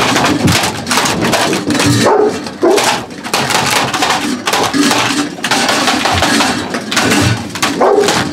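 East European Shepherd puppies eating from metal bowls, with crunching, clinking bowls and a few short puppy yelps.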